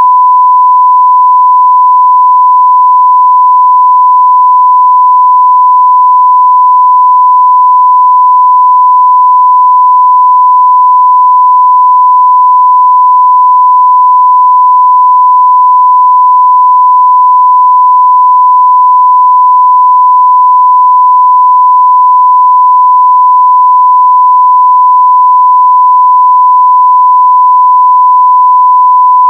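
A continuous 1 kHz sine-wave test tone at full level (0 dB), one pure pitch held perfectly steady.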